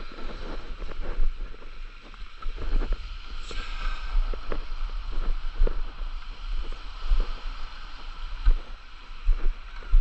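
Small waves washing up over wet sand at the water's edge around a paddleboard, with irregular low thumps close to the microphone.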